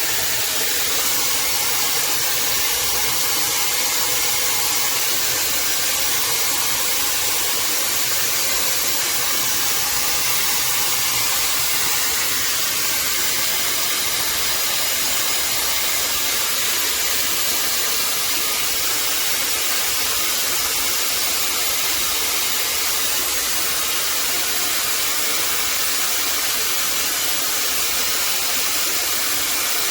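Shark FlexStyle hair dryer running steadily: an even rush of blown air with a motor hum, holding a constant level.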